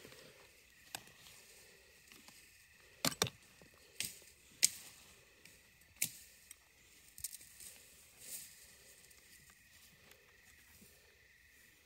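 Wire parts of a hand-made rabbit trap clicking and clinking as it is set and bedded into dry soil by hand: scattered sharp clicks, the loudest a few seconds in, over a faint steady high-pitched drone.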